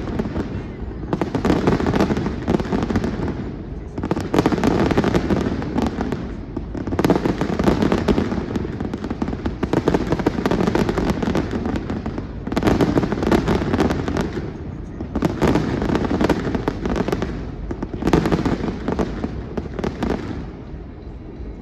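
Aerial fireworks going off in a rapid run of volleys, each a dense rattle of bangs and crackle, coming about every two to three seconds and dying away just before the end.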